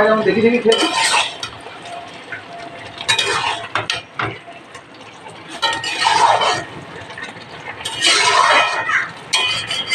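Metal spatula scraping and clinking against a metal wok while a ridge gourd curry is stirred, in about five strokes a couple of seconds apart.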